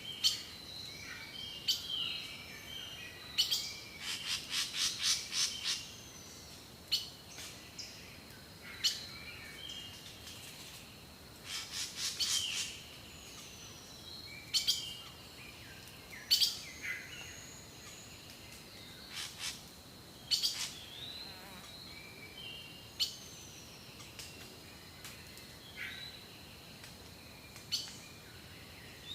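Wild birds singing and chirping: short scattered calls and whistles, with a quick run of repeated notes about four seconds in, over a faint steady high-pitched tone.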